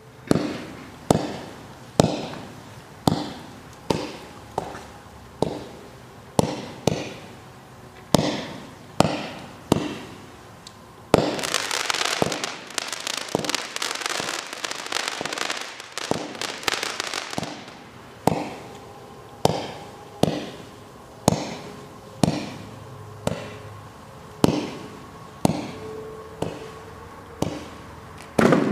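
Fireworks Fiesta 200 g consumer fireworks cake firing shot after shot, with sharp reports about one a second. A dense stretch of crackling noise lasts about seven seconds in the middle, and then the single reports go on again.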